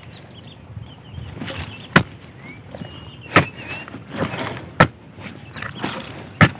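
A hand digging tool chopping into earth to open a burrow: four sharp strikes about a second and a half apart, with smaller knocks and soil scraping between them.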